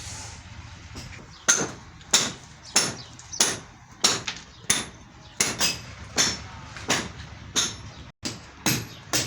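Hammer striking repeatedly at a steady pace, about one blow every two-thirds of a second, beginning about a second and a half in; each blow is sharp with a short ring after it.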